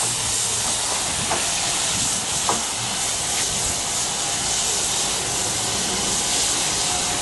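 Steady hiss of escaping steam from the BDZ 46.03 steam locomotive.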